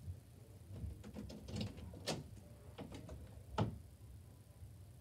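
Faint scattered clicks and knocks of someone moving about and handling things off camera. The two loudest come about two seconds in and three and a half seconds in.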